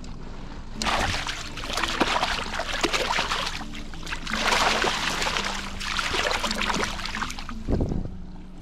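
Water splashing and sloshing in two long surges, with faint steady background music underneath and a low thump near the end.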